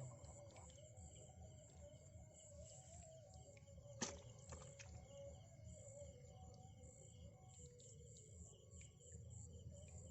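Faint rural outdoor ambience with birds and insects chirping over a low steady rumble, and one sharp click about four seconds in.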